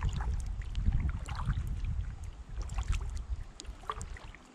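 Wind buffeting the kayak-mounted camera's microphone as a low rumble that dies away near the end, over light splashes and drips of water from kayak paddle strokes.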